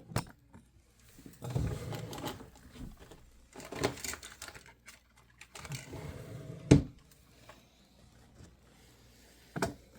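Handling noises: rustling and scattered clicks as a camera is moved and small objects are picked up on a table. One sharp knock about two-thirds of the way through is the loudest sound.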